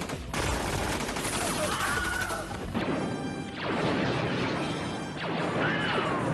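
Movie battle soundtrack: a dense barrage of gunfire with crashes, and a short cry that falls in pitch near the end.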